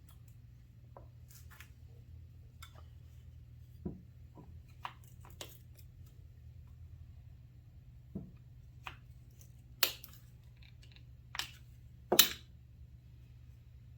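Scattered clicks and light knocks of hand tools and small metal parts being worked while a carburetor linkage is taken off an engine, the two loudest about ten and twelve seconds in, over a steady low hum.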